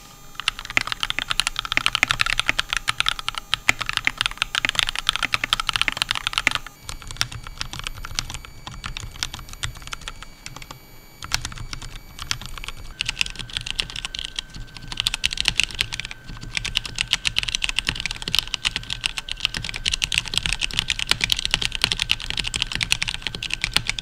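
Fast typing on three mechanical keyboards in turn, a dense run of key clacks. First a modded Royal Kludge RK61, then a modded Kemove K68, quieter and duller, from about a quarter of the way in. From about halfway on, a stock Mountain Everest Max with a low-pitched thock and only a little resonance in its body.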